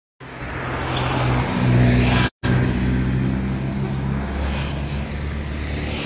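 A motor vehicle engine runs with a steady low hum, growing louder over the first two seconds. The sound drops out for an instant just after two seconds in.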